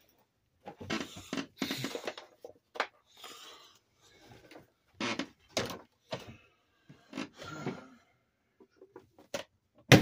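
Upright vacuum cleaner being moved and handled while switched off: irregular scrapes, rustles and knocks with short silences between them, ending in a loud thump near the end.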